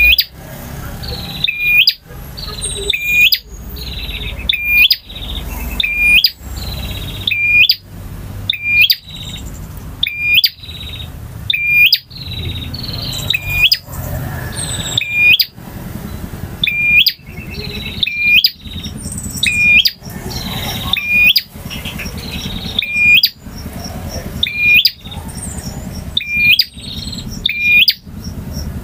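Male prinia (prenjak) singing: short, sharp chirping phrases repeated about once a second, each one rising quickly to a loud end.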